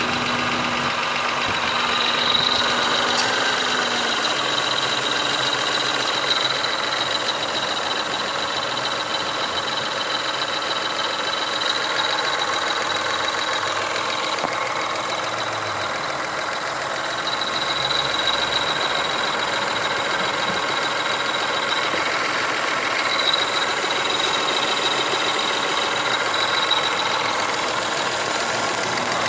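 Toyota Camry's 1MZ-FE 3.0-litre V6 idling steadily, with a thin high whistle that comes and goes. The owner cannot tell whether the abnormal noise is a knock or a whistle.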